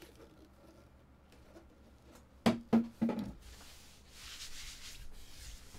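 Soft rustle of a red foil trading-card pack being handled on a mat, starting about three and a half seconds in. Just before it come three short voice sounds.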